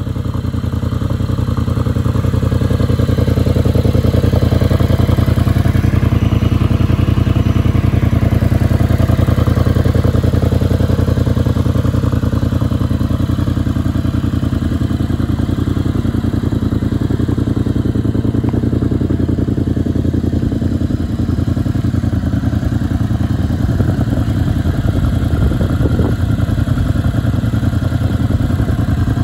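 Triumph Bonneville Bobber's 1200 cc parallel-twin engine idling steadily through its twin-pipe exhaust.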